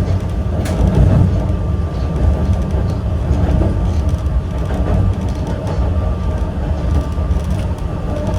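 Yokkaichi Asunarou Railway 260-series narrow-gauge electric car running between stations: a steady low rumble of wheels on rail and its nose-suspended traction motor drive, with a single sharp click under a second in.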